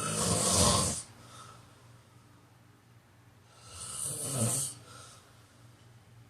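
A man snoring: two rattling snores, each about a second long, some four seconds apart, the first one the louder.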